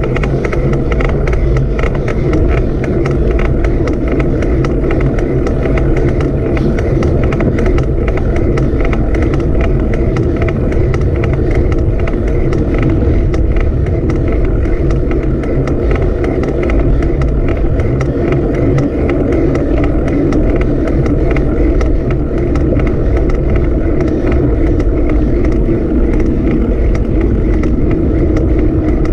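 Steady vehicle noise: a constant low engine and road rumble with a fluttering, windy texture, unchanging throughout.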